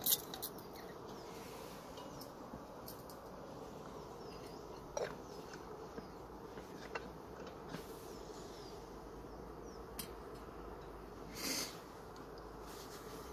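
Screw-on gas canister camping stove burning with a steady low hiss and hum. A few light clinks and knocks come as a metal kettle is handled, the loudest near the end as it is set on the burner.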